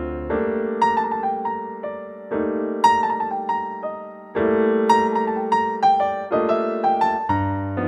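Piano music: a melody of struck notes, a few a second, each fading away, over held chords that change every couple of seconds.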